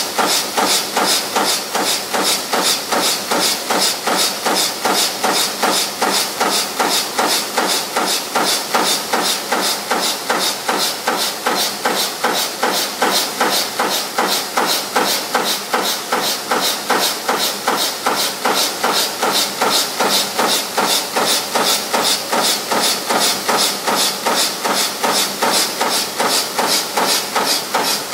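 Mechanical punch press running continuously, punching copper zipper slider springs: an even, rapid train of press strokes, about three to four a second.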